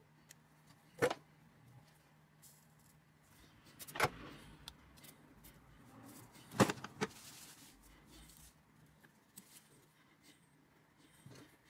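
A few sharp taps or knocks, three of them stand out, the last one doubled, with faint small clicks in between, like small objects being handled on a hard surface.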